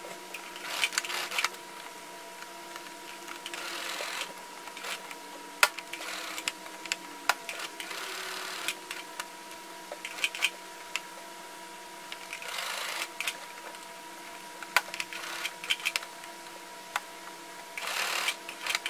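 Brother household sewing machine stitching a webbing strap in about seven short runs, each a second or less, with sharp clicks in between.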